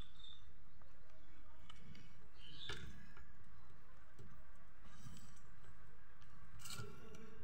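Rabbits scrabbling and feeding in a wooden hutch: faint scattered clicks and scratches of claws and nibbling over a steady low background noise.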